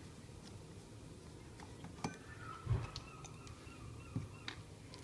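Faint scattered clicks of a crosshead screwdriver and small screws being worked out of an air compressor's front panel, with one dull thump a little after halfway.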